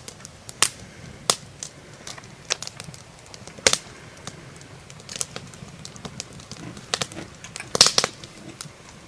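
Fork and knife clicking against a plate during a meal: sharp, scattered clicks about a second apart, with a pair of louder ones near the end.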